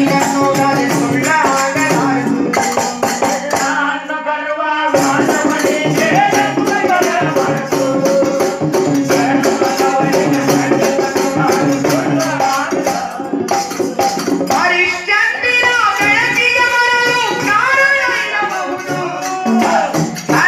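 Bhajan being performed: a man singing at a microphone over steady held notes, with a jingling percussion beat keeping time. The melody line stands out most strongly in the last few seconds.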